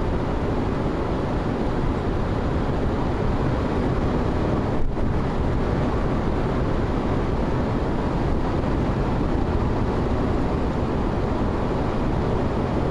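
Steady road and wind noise inside a vehicle moving at highway speed, with one brief click about five seconds in.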